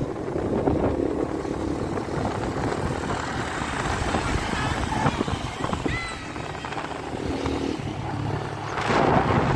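Motor scooter running at riding speed with a steady engine hum, plus road and wind noise, heard from on the moving scooter. Near the end, wind buffets the microphone.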